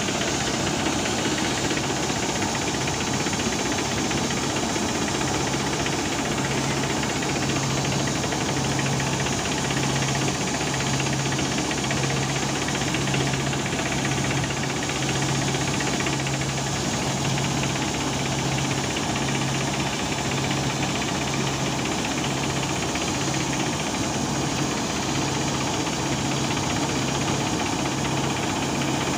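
Combine harvester running steadily while its unloading auger pours threshed wheat into a tractor trolley. The engine and machinery make a dense, even noise with a low, pulsing hum.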